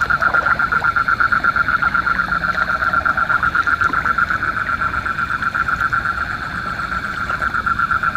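Rice-paddy frogs calling in chorus: a steady, rapid pulsed trill of about six pulses a second.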